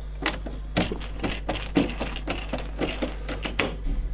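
Irregular metallic clicks and ticks, a few a second, of a hex-socket screwdriver turning out the hex screws of a freezer door's lower hinge.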